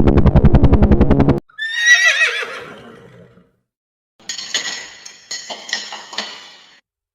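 Horse whinnying: a wavering neigh that falls in pitch, followed by a rougher, noisier stretch of horse sound. Before the whinny, a rapid, evenly pulsing low rumble cuts off suddenly.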